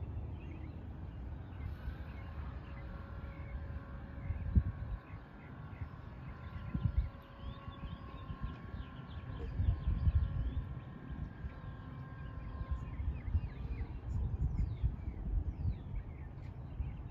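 LiftMaster swing-gate operator running with a steady whine as it swings an iron driveway gate open, starting about two seconds in and stopping a few seconds before the end. A low, uneven rumble sits underneath, and small birds chirp.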